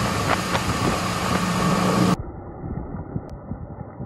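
A Yamaha 250 outboard motor runs at speed with a steady hum, with wind and water rushing past the stern. About halfway through, the sound cuts to a quieter, muffled take of the boat running across open water, with water splashing along the hull.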